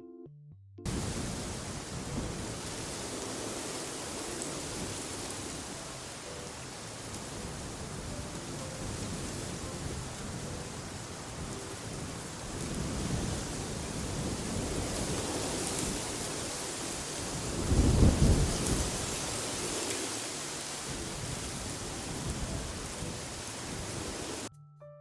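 Wind sound effect: a steady rush of wind with low rumbling gusts, starting suddenly about a second in. The strongest gust comes about three-quarters of the way through.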